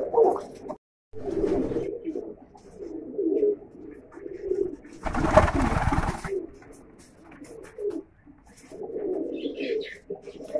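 Mookee pigeons cooing in a cage, several birds overlapping in repeated low, warbling coos. About halfway through there is a second-long burst of noise.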